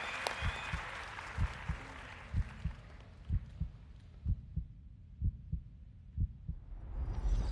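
Studio applause fades out, then a suspense sound effect of slow, low heartbeat-like thumps, about one a second. A rising whoosh swells near the end.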